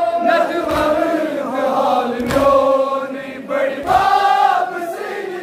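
Crowd of men chanting a Kashmiri noha in unison, with their collective chest-beating (matam) slaps landing together about every one and a half seconds, three times.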